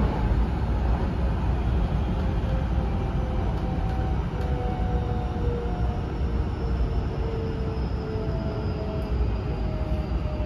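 Hankyu 9000 series electric train heard from inside the car: a steady rumble of wheels on rail under the faint whine of its Toshiba IGBT-VVVF inverter traction motors. The whine falls slowly in pitch as the train slows.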